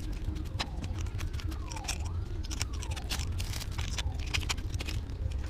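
Light metallic clicks and clinks as the cam gear of a Honda TMX 155 (CG125) pushrod engine is worked loose by hand. There is a steady low rumble underneath, and a faint tone glides down and up about three times in the middle.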